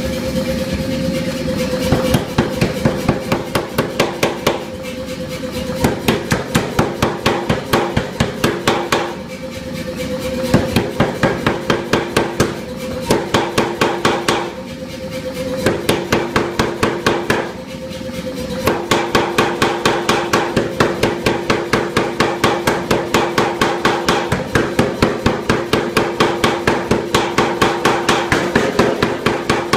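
25 kg Anyang air power hammer forging a red-hot steel bar, its ram striking in rapid blows about four a second, in runs broken by several short pauses. A steady hum sounds underneath.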